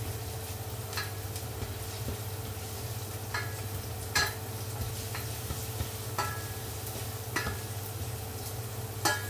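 Garlic frying in hot oil in a stainless steel pot, a steady sizzle, as a spatula stirs it and knocks against the pot every second or so. A low steady hum runs underneath.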